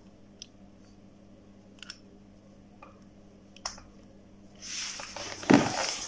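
Faint clicks from a smartphone and its charging cable being handled, then a louder scuffing noise with one stronger knock about five and a half seconds in, as the phone is laid down on a sheet of paper on the bench.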